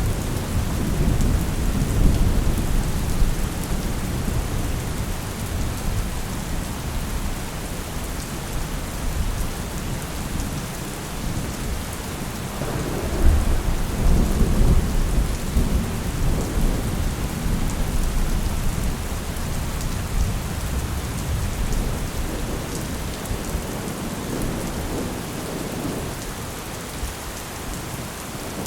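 Steady rain falling with thunder rolling low underneath; the thunder swells again about twelve seconds in and eases off toward the end.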